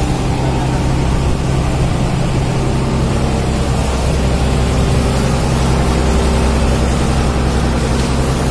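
Fishing boat's engine running steadily, with a hose splashing water over baskets of fish on the deck.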